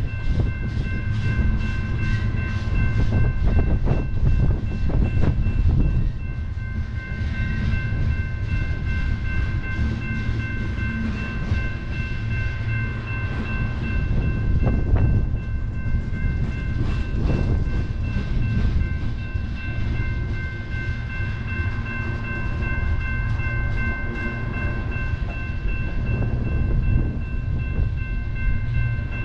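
Freight train of tank cars rolling through a grade crossing: a steady low rumble with irregular wheel knocks and clacks. The crossing's electronic warning bells ring on without pause above it as a steady high ringing.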